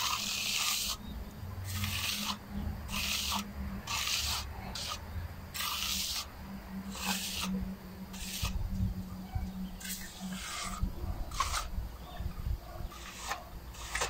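Steel hand trowel scraping over wet concrete in repeated smoothing strokes, roughly one a second, as the fresh slab is finished.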